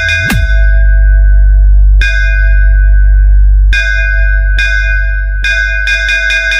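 Electronic DJ bass-test track: a constant heavy sub-bass under bell-like synth strikes, with a quick pitch-dive sweep in the bass just after the start. Single bell strikes ring out about two seconds in and again just before four seconds, then a rapid run of strikes fills the last two seconds.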